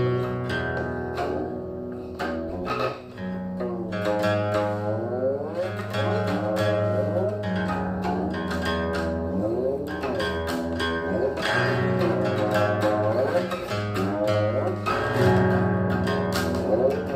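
Guqin, the seven-string Chinese zither, playing a solo passage: plucked notes with many sliding pitches, rising and falling, over low strings that ring on underneath.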